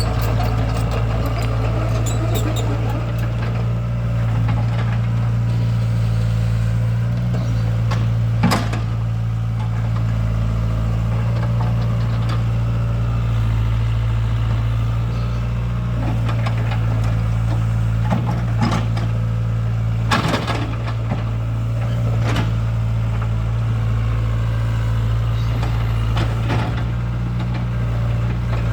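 Excavator's diesel engine running steadily at a constant low hum while digging, with a few sharp knocks about a third of the way in and again around two-thirds of the way through.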